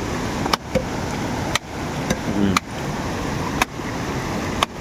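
A wooden stick beating a bundle of shredded plant bark against a rock, five even blows about a second apart, pounding out the bark's sap for use as a traditional fish poison. A river's steady rush of water runs underneath.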